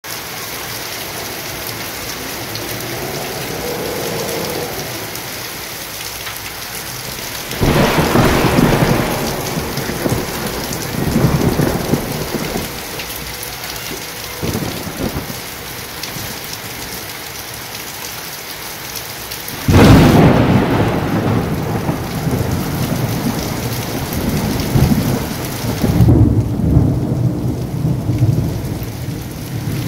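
Heavy rain falling steadily, with thunder breaking in twice: suddenly and loudly about eight seconds in, rumbling on for several seconds, then louder still about twenty seconds in, rolling on and swelling again near the end.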